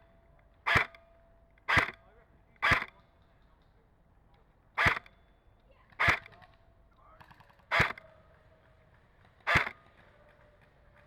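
CYMA M14 airsoft electric rifle firing single shots, seven sharp snaps at uneven intervals over about nine seconds.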